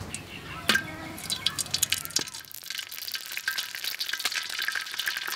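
Hot oil sizzling and crackling in a wok as a dried piece of food fries in it, the dense crackle taking over about two seconds in. A single sharp knock comes just under a second in.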